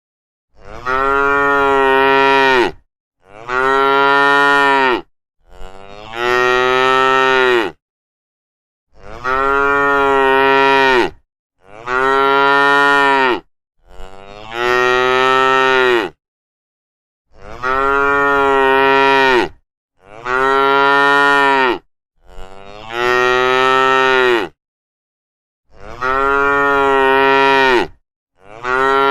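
Cows mooing: about eleven long moos one after another, each lasting about two seconds, with short silent gaps between them.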